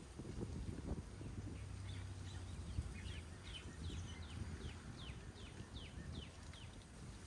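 A bird singing a quick series of short, down-slurred whistled notes, about three a second, starting a few seconds in, over a low outdoor rumble.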